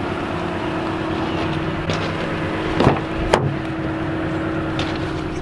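An SUV engine running steadily with a constant low hum, and a few sharp clicks and knocks in the middle as the vehicle is handled.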